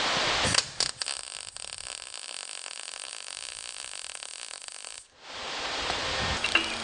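MIG welder arc crackling and hissing while welding a steel door skin to the door shell. The arc breaks off about half a second in with a few clicks, and a quieter stretch follows. The crackle starts again about a second and a half before the end.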